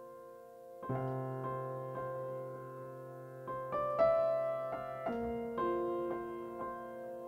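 Slow, soft piano chords played on a keyboard, held and left to ring. A new chord with a low bass note comes in about a second in, and the harmony changes a few more times.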